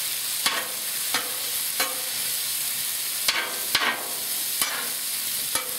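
Sliced chicken sizzling steadily on a Blackstone flat-top griddle. A metal spatula scrapes and knocks against the steel griddle plate about seven times at irregular intervals as the meat is pushed and chopped into portions.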